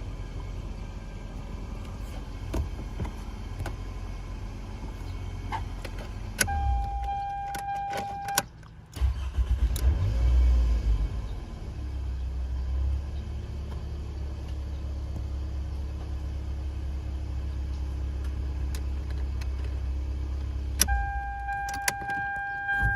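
Toyota Kluger running at idle, presented as an air-conditioning abnormal noise. The engine cuts out briefly about eight and a half seconds in, then surges back up and settles into a steady run. A steady high tone sounds for about two seconds before the cut-out and comes back near the end.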